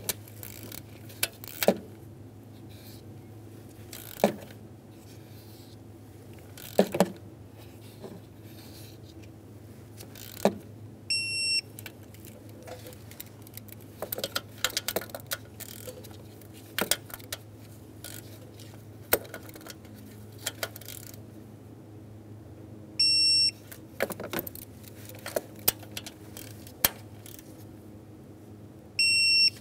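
Electronic torque wrench beeping three times, each a steady high beep about a second long, as each intake manifold bolt reaches its final 88 inch-pound torque. Between the beeps come scattered clicks and metal clinks of the ratchet and socket.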